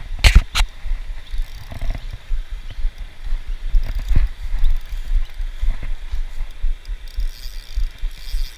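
Low, uneven rumbling and buffeting on the camera's microphone from handling and movement, with two sharp knocks close together near the start and a few fainter ticks later.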